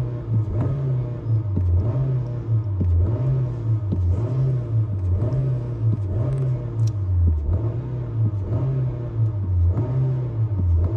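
Car engine being revved over and over, its pitch rising and falling about once a second.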